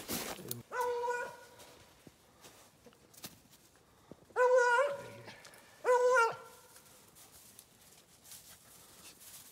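A beagle-type hare hound baying three times: long, drawn-out bawls, the first about a second in and the other two a second and a half apart about halfway through.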